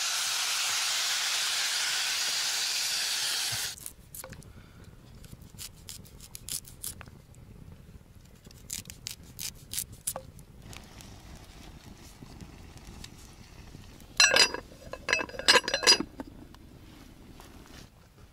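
Water pours steadily into a metal pot of cut potatoes and stops suddenly after about four seconds. Then comes a run of light knife clicks as a carrot is sliced over the pot. Near the end there is a burst of sharp, ringing metal clinks, the loudest sounds here.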